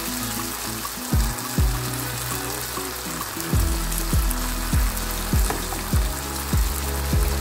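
Minced-meat and tomato sauce sizzling in a frying pan as it is stirred with a wooden spatula. Under it runs background music with held bass notes and deep kick drums that drop in pitch, settling into a steady beat of a little under two kicks a second from about three and a half seconds in.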